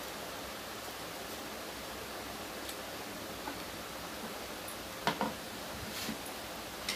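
Steady background hiss with quiet eating at a table, and a few short knocks and clicks of dishes being handled, the loudest about five seconds in.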